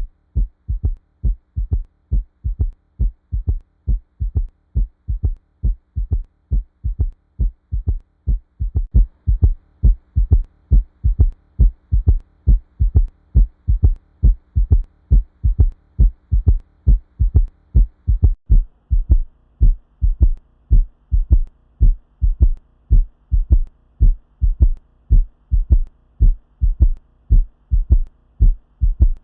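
Heartbeat heard through a stethoscope with a third heart sound (S3): a steady, regular rhythm of low thuds, each lub-dub followed early in diastole by an extra sound lower in pitch than S1 and S2, giving a gallop rhythm, over a faint steady hum. An S3 gallop is a sign of ventricular failure, though it can be physiological in people under 40.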